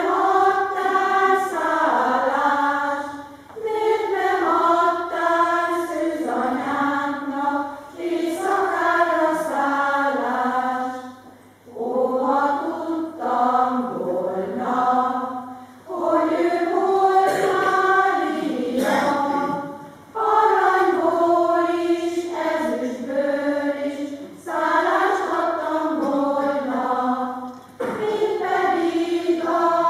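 Women's and girls' choir singing in phrases of about four seconds, each followed by a brief pause for breath.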